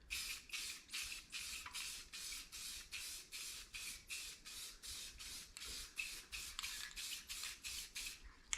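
Aerosol spray can of tail-light tint hissing in short, rapid bursts, about four a second, as a coat is sprayed on. The bursts stop just before the end.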